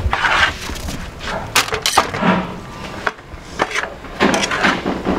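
Aluminium foil crinkling and rustling as roast pork is handled in a foil-lined container, with several sharp knocks and clicks scattered through.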